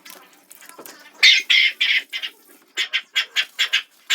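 Dog giving a quick run of short, high-pitched squeaky cries, starting about a second in.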